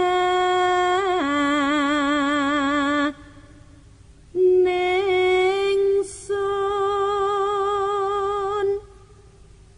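An unaccompanied solo voice singing slow, long-held notes with a wavering vibrato. The pitch steps down about a second in, and the voice pauses briefly twice: after about three seconds, and again shortly before the end.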